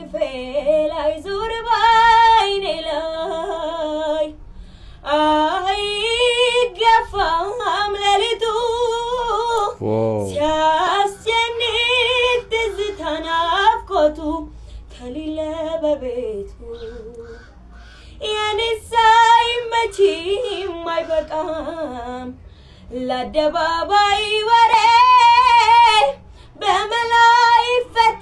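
A young girl singing solo without accompaniment, in long held phrases broken by a few short pauses for breath.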